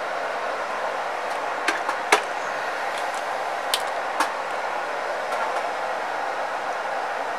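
Steady fan-like whoosh of running workbench equipment. Over it come a handful of sharp clicks between about two and four seconds in, from metal tweezers working a transistor on the circuit board.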